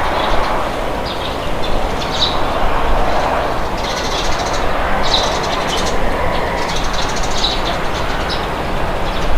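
Steady wind with small birds chirping over it in repeated short bursts.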